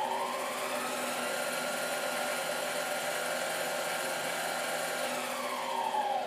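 Harbor Freight mini lathe's variable-speed motor and spindle running forward in the low-speed range. The whine rises in pitch as the speed is turned up, holds steady for a few seconds, then falls away near the end as the speed is turned back down.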